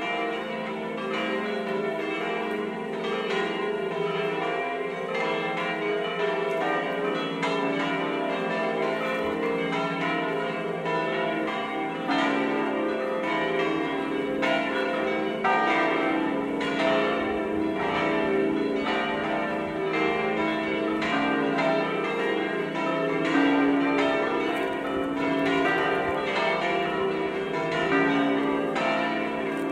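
Seven De Poli church bells, tuned D up to C, swinging full circle with flying clappers ('a distesa'): a continuous, overlapping peal of strikes with no pauses. This is the single call rung before a solemn Mass.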